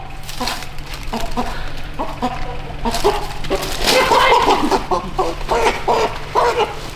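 A chicken clucking over and over in short calls, busiest and loudest about halfway through.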